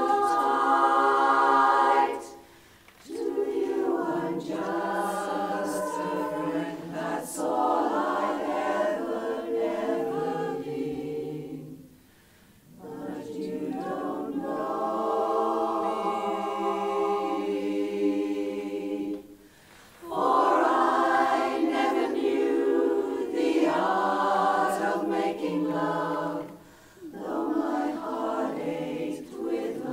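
Women's chorus singing a cappella in close harmony, in sung phrases broken by brief breaths and pauses, the longest pause a little before halfway.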